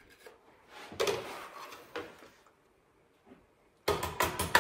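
A food scoop scraping chopped food off into a stone mortar about a second in, then a quick run of sharp knocks near the end as the scoop strikes the mortar.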